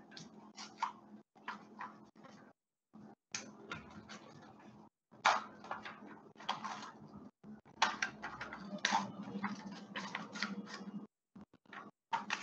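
Paper rustling and crinkling in irregular spells as torn scraps of coloured paper and a torn sheet are handled and laid out by hand.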